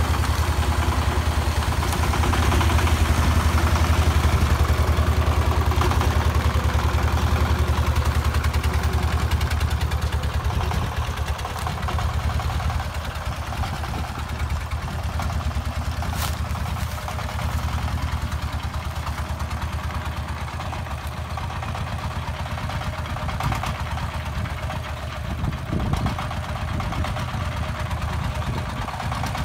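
Single-cylinder diesel engine of a homemade farm truck heavily loaded with sacks of corn, chugging steadily as it pulls up a hillside track. It is loudest in the first ten seconds or so, then somewhat quieter.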